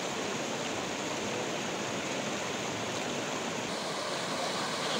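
Muddy flash-flood water rushing steadily and churning over rubble.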